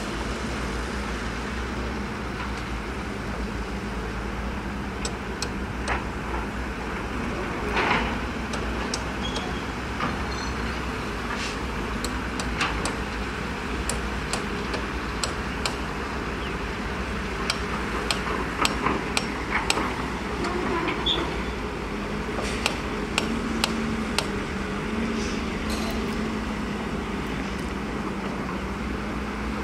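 Diesel engines of dump trucks and an excavator running steadily with a low drone. Scattered sharp clicks and knocks come and go through the middle of it.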